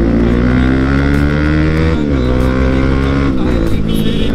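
Bajaj Pulsar NS200 motorcycle engine pulling under acceleration. Its pitch climbs steadily, then drops briefly about two seconds in and again a little past three seconds, like upshifts, climbing again after each.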